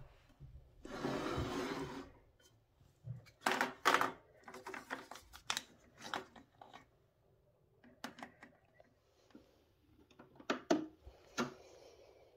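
Plastic Tassimo coffee discs clicking and knocking against a wire pod rack as they are handled and picked out, after a short rustle about a second in.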